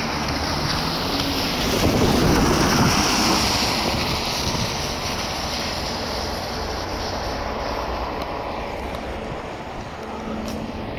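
Road traffic on a wet road: the hiss of a passing vehicle's tyres swells to its loudest about two to three seconds in and fades, over steady wind buffeting the microphone.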